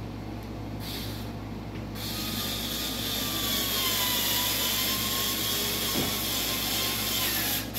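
Cordless screw gun driving a screw through the front splitter into the car's bumper. After a brief blip about a second in, the motor runs for about six seconds with a whine that sinks slightly in pitch as the screw goes in, then stops just before the end.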